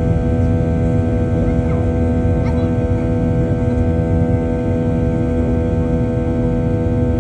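Airliner's jet engines droning steadily in the climb after takeoff, heard inside the cabin as a loud, even rumble with many steady tones held over it.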